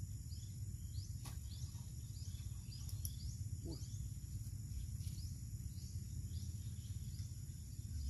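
Outdoor ambience: a small animal's short, high, falling chirps, repeated about twice a second, over a steady low rumble, with a couple of faint clicks.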